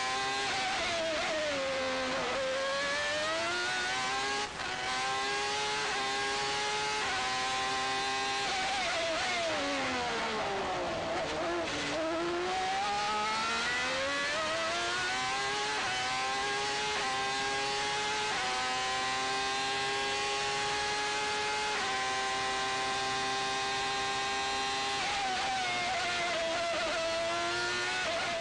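Onboard sound of a 1995 Ferrari 412 T2's 3.0-litre V12 Formula One engine at racing speed. It drops steeply in pitch twice as it is braked and downshifted for corners, the second time for a slow corner near the middle. It climbs in quick upshift steps with a short cut in sound at a gear change, and holds a steady high-revving scream for several seconds before a last lift and re-acceleration near the end.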